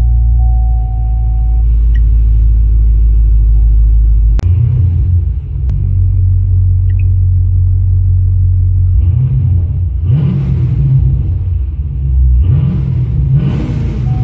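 Chevrolet Camaro SS's 6.2-litre LS3 V8 idling, heard from inside the cabin. A sharp click comes about four seconds in, and the engine is blipped to higher revs a few times in the last five seconds.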